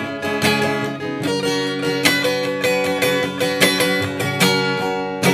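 Acoustic guitar strumming chords in a steady rhythm, with no voice.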